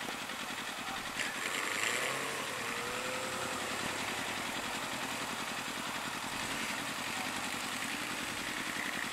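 Motorcycle engines idling in stopped traffic. About a second in, a bike pulls away and its engine note rises briefly, then the steady idling goes on.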